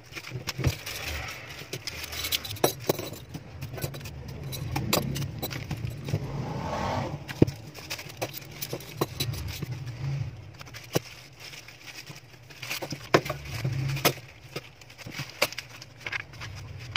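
Unboxing and handling noises: small plastic bags rustling and the loose metal hot-air nozzles clinking on the bench, then the paper instruction sheets being handled, with many scattered sharp clicks and knocks.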